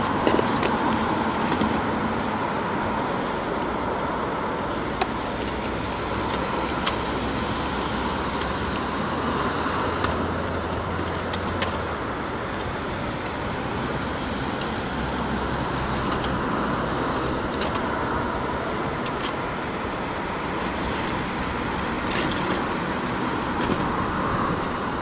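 Sharp clacks of drill rifles being slapped and handled now and then during a silent rifle drill routine, heard over a steady background roar.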